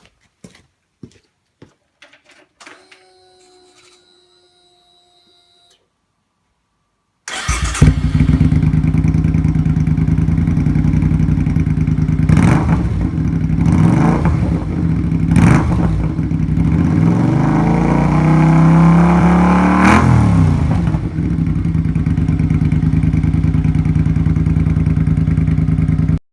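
Suzuki Intruder Classic 400's V-twin engine through a Kentec low-rider muffler: a few clicks and a short steady electric hum, then the engine starts about seven seconds in and idles with several blips of the throttle rising and falling in pitch, until it cuts off suddenly.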